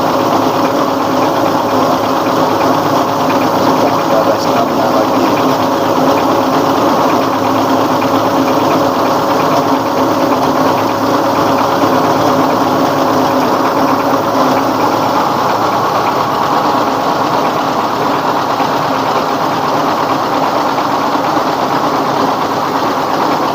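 Rice husking machine running steadily under load, driven by a 24 hp dompeng (Dongfeng-type) single-cylinder diesel engine: a loud, constant mechanical din with a steady hum in it.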